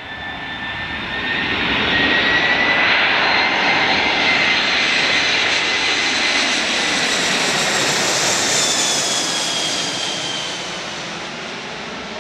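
Airbus A340-313E four-engined airliner on landing approach, passing low overhead with its CFM56 turbofans at approach power: loud jet noise with a high whine that builds over the first two seconds. The whine drops in pitch about eight seconds in as the aircraft goes over, and the sound then eases off.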